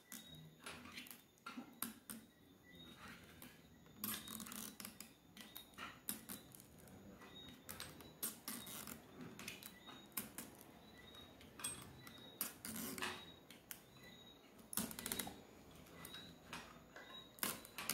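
Faint scattered clicks and scrapes of hands and small parts on an opened tablet. Longer rustling pulls come about four and fifteen seconds in, as the adhesive pull tabs under the battery are drawn out.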